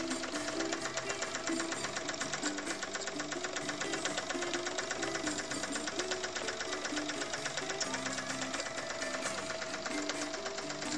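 Jensen 75 toy steam engine running fast with a rapid, even mechanical clatter while it drives a small stepper-motor generator by a belt.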